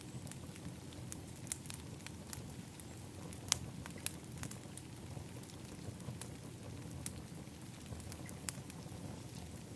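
Wood fire in an outdoor fire pit crackling, with irregular sharp pops (the loudest about three and a half seconds in) over a low steady rumble.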